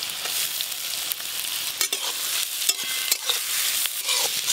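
Chopped onions sizzling as they fry in hot ghee, with a spatula stirring them in the pan and making irregular clicks and scrapes against it.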